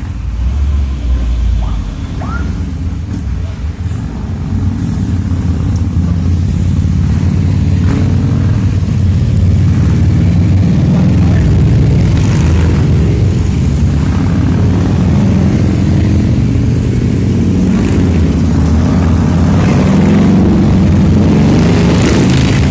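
Heavy truck diesel engines running hard and steady, the stalled wingbox truck pulling under load on a steep climb. The sound builds a few seconds in and then stays loud, with motorcycle engines passing close by.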